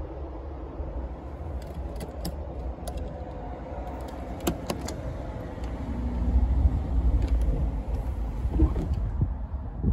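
Electric sliding sunroof of a 1991 Mercedes-Benz 300TE motoring closed, heard from inside the cabin: a steady low hum that grows louder about six seconds in, with scattered clicks and knocks.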